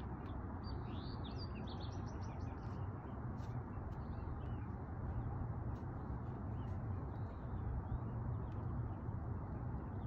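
Songbird chirping: a quick run of short high notes in the first couple of seconds, then fainter scattered calls, over steady low background noise.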